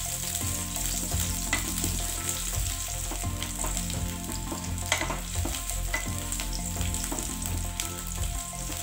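Sliced shallots and garlic sizzling in hot oil in a wok, with a spatula stirring and scraping against the pan now and then.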